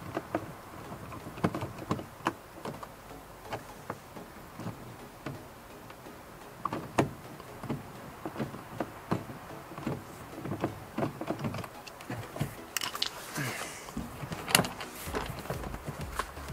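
Hand screwdriver backing out a long screw hidden under the pull handle of a door trim panel: a run of small irregular clicks and ticks, with a brief rustle and the loudest click near the end.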